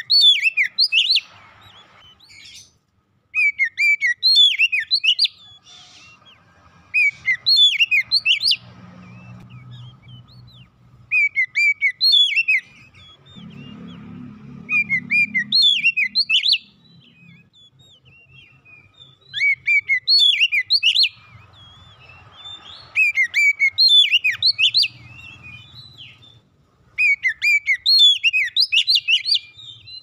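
Oriental magpie-robin singing: short phrases of quick, high whistled notes sweeping up and down, repeated every two to three seconds with brief pauses between.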